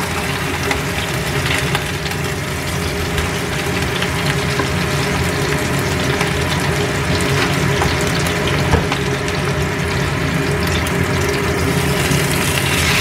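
Whole fish frying gently in a little oil in a stainless steel pan, a steady sizzle. A few light clicks come from a spatula and chopsticks against the pan as the fish is lifted and turned over. A steady low hum runs underneath.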